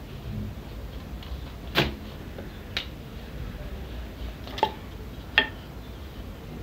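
Kitchen utensils knocking on a worktop while dough is rolled and floured: four short, sharp taps, about a second apart, with the loudest near the end.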